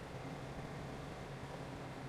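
Heavy diesel earthmoving machinery running steadily, a low even engine hum with a noisy haze over it.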